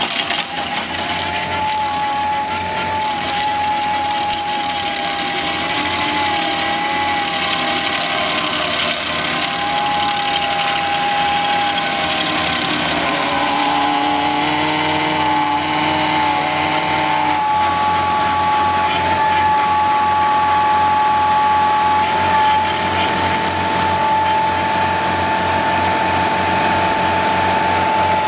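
Miller Pro150 PTO stump grinder's Revolution cutter wheel spinning and chewing into a stump, with the tractor engine running under load. A high whine sags and wavers as the wheel bites, then holds steady near the end.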